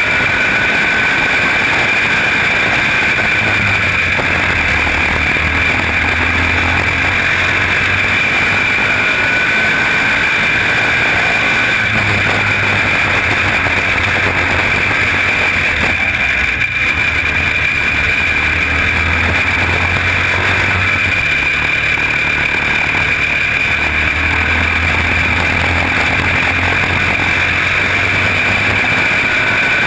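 Quarter midget race car's small single-cylinder engine running at racing speed, heard close from the driver's helmet, with a steady high whine above it. The engine note drops and rises again every few seconds as the car laps the short oval.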